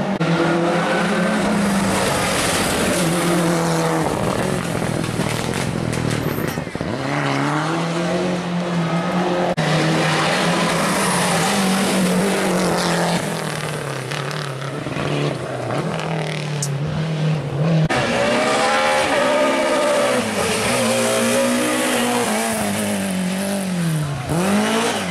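Rally car engines revving hard at full throttle, the pitch climbing and falling back repeatedly through gear changes and corners.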